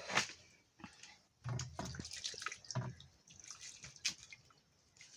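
Water dripping and splashing in irregular spurts, heaviest in the first three seconds and trailing off to a few faint drips.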